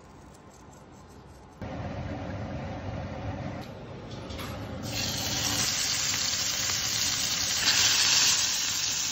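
A steady low rush of stove noise starts suddenly about a second and a half in; about five seconds in, a raw steak goes into a hot skillet and sears with a loud, steady sizzle.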